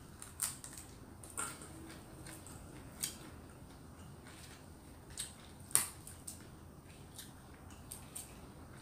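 Quiet sounds of a person eating by hand: about nine short, sharp chewing clicks and smacks, scattered irregularly, the loudest a little past the middle.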